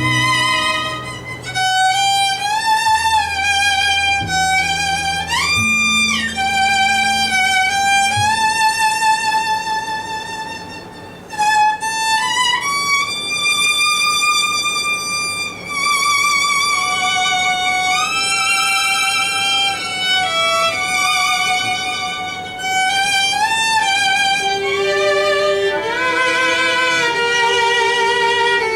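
Instrumental break in a live love ballad: a single melody instrument plays long held notes with vibrato and slides. Low accompaniment notes drop out after about eight seconds, and a second, lower melodic line joins near the end.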